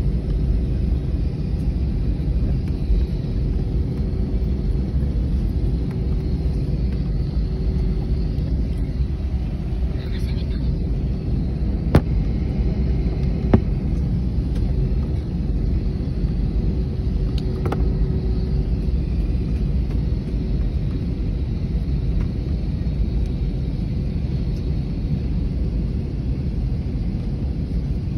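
Steady low rumble of a jet airliner's engines heard from inside the passenger cabin as the plane sits on the ground before takeoff, with a steady hum running through it. Two sharp clicks come about halfway through.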